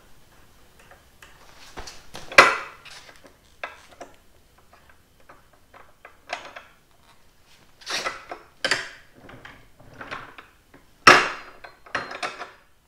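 Irregular knocks and clatter of metal parts as the leveler feet on the steel corner brackets of a universal mobile base are adjusted by hand, with a sharp knock about two seconds in, a few more around eight seconds, and another sharp one near the end.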